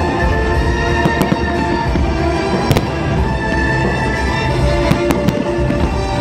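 Fireworks exploring in sharp bangs, about six scattered through a few seconds, over loud music with long held notes.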